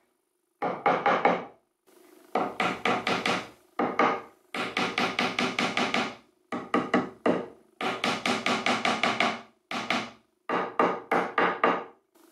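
A hand tool is worked quickly across a dark wooden dovetail key, trimming it flush with the corner of a pine pallet-wood tray. It makes rapid strokes on wood, about five or six a second, in runs of one to two seconds with short pauses between them.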